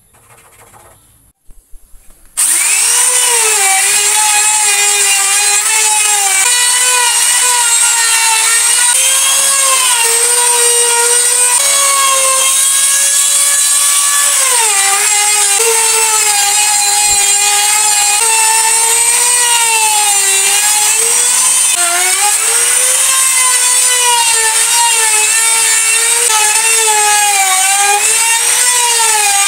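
Electric power tool cutting wood: it comes in suddenly about two seconds in and runs loud and continuous, its motor pitch dipping and recovering as the cut loads it.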